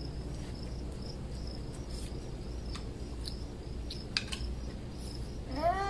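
Crickets chirping steadily, with a few light clicks of mussel shells and utensils on plates about four seconds in. Near the end comes a short call that rises and then falls in pitch.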